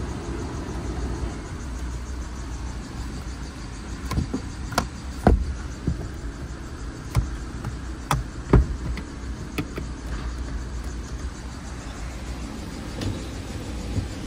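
Sun visor and vanity mirror cover inside a 2015 Ford Explorer being flipped and snapped, a run of sharp plastic clicks and knocks from about four to ten seconds in, over a steady low rumble in the cabin.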